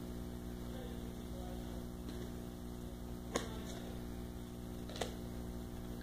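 Steady low hum with two light clicks about a second and a half apart, as trading cards are handled.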